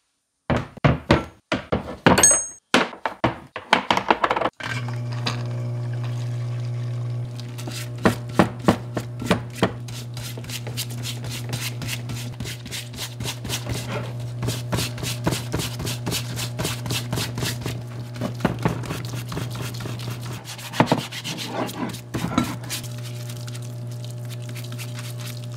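Metal air hammer parts knocking against a plastic parts-washer tub, then the parts washer's pump starts and hums steadily while a stiff brush scrubs the parts in quick scratchy strokes and cleaning fluid runs from the brush.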